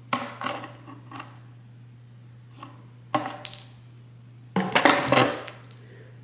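Feather wand toy with a metal bead chain knocking and scraping against a cardboard box in short bursts, the longest and loudest near the end, over a steady low hum.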